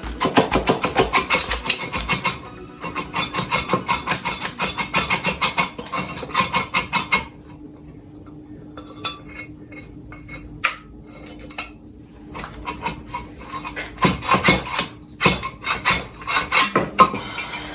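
Rapid metallic knocking and clinking, about five blows a second, as the cylinder block of a Yamaha XJ900 engine is worked loose from the crankcase. The knocking comes in two long runs at the start, goes quiet for several seconds, then returns in a last flurry near the end. A faint steady hum sits underneath.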